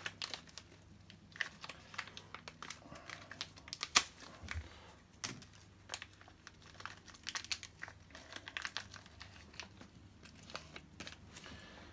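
Clear plastic parts bag crinkling as it is opened and handled, an irregular run of small crackles, with one sharp click about four seconds in.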